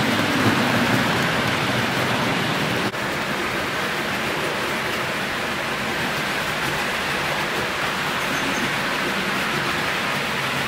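HO-scale model freight train rolling along the track: a steady rushing rumble of many wagons' wheels on the rails. It breaks off for an instant about three seconds in, then carries on slightly quieter.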